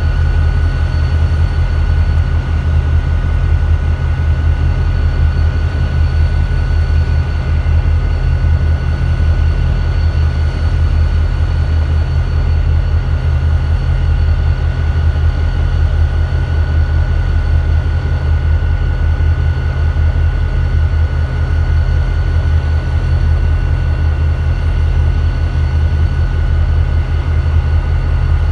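EMD two-stroke diesel locomotives idling: a steady, unchanging low rumble with a thin steady whine above it.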